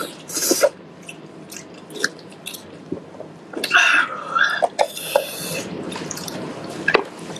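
Close-up wet chewing and sticky smacking on braised pig's head, with short clicks and a few louder squelchy bursts as kitchen scissors cut into the glazed, fatty meat about halfway through.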